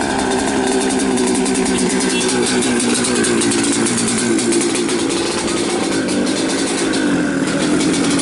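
Yamaha RX-King's single-cylinder two-stroke engine running steadily above idle, its pitch wavering slightly and easing down a little in the second half.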